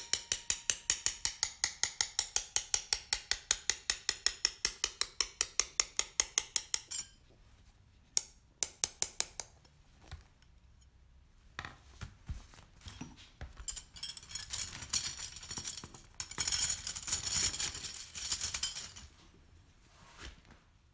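Cut strips of stained glass clinking and scraping against one another as they are handled, in several spells over the second half. Before that, a fast, even ticking of about six clicks a second stops about seven seconds in.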